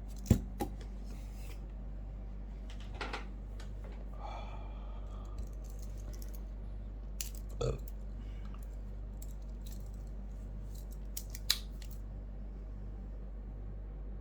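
Omega Speedmaster's metal bracelet being handled after fitting: scattered small metallic clicks and clinks, the sharpest just after the start and another about eleven seconds in.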